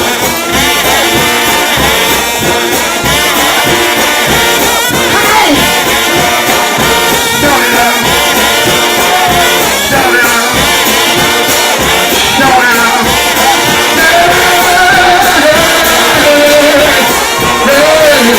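Trombone shout band playing a shout: many brass horns sounding together, loud and unbroken.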